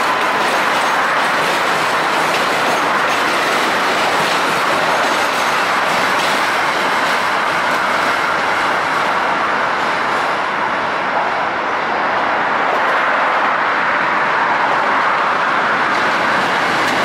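New York City subway trains running on the Williamsburg Bridge's elevated tracks: a loud, steady noise of steel wheels on rail that eases slightly about two-thirds of the way through.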